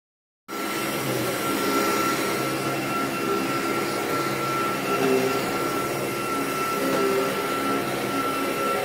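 Vacuum cleaner running steadily: an even rushing noise with a high steady whine over it.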